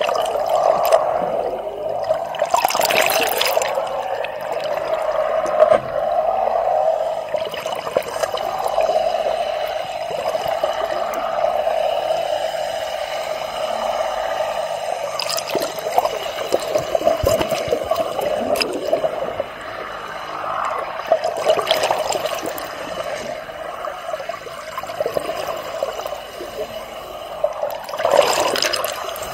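Water heard through a submerged camera: a steady rushing of water, with louder swooshes about three seconds in, around twenty-two seconds and near the end.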